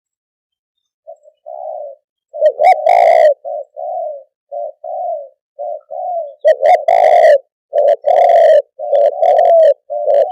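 Spotted dove cooing: after about a second of silence, a run of short, low coo notes repeated in phrases, a few of them much louder than the rest.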